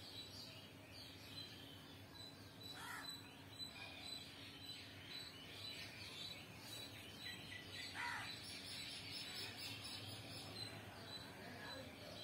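Birds chirping and twittering, faint, with a few short calls that drop in pitch and a steady low hum underneath.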